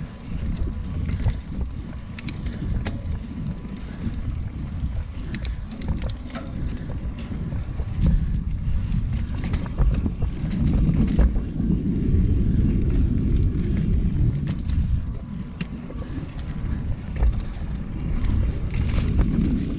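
Mountain bike ridden along dirt singletrack, heard from a camera on the bike or rider: wind rumbling on the microphone over the tyres rolling on the trail, with scattered clicks and rattles from the bike over roots and bumps. The rumble grows louder about eight seconds in.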